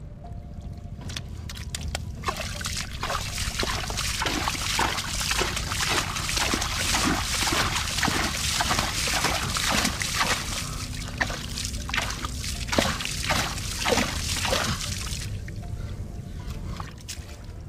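Shallow muddy water sloshing and splashing as bare hands churn and scoop through it, many quick splashes in a row, dying down near the end.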